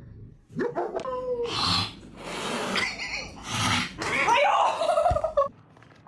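A dog vocalizing in a run of loud bursts, starting about half a second in and stopping shortly before the end.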